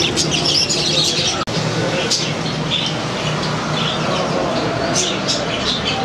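Many caged parrots chattering with short, high chirps and squawks. There is a brief break in the sound about a second and a half in.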